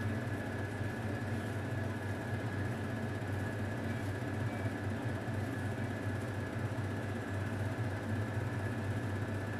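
Steady mechanical hum: a low drone with a thin high whine above it.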